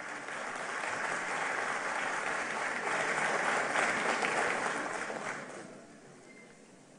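Audience applauding: the clapping swells over the first few seconds, then dies away about five to six seconds in.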